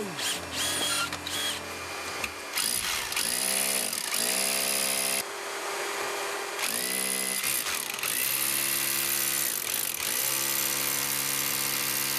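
Electric drill boring the flue-pipe hole through a house wall, stopping and restarting several times, its motor pitch rising each time it spins back up.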